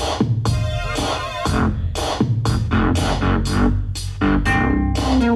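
Electronic dance music from a DJ, with a steady drum-machine beat of about two strikes a second under synthesizer notes.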